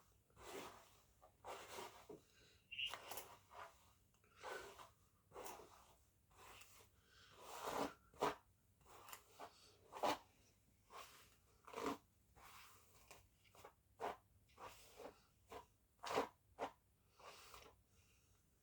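Faint, irregular rustling with soft taps and scrapes of close-up handling, one or two a second.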